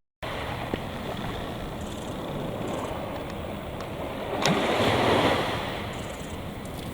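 Small waves washing on the shore under a steady hiss of wind, with one wave swelling louder about two thirds of the way through.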